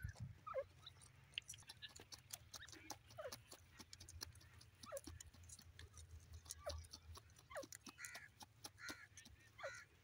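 Grey francolin digging and pecking in dry soil: faint, rapid clicks and scratches, with a short, soft falling chirp every second or two and a few brighter chirps near the end.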